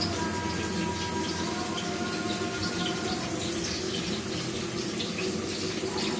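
Chicken curry gravy boiling in a covered pan: a steady bubbling with many small pops.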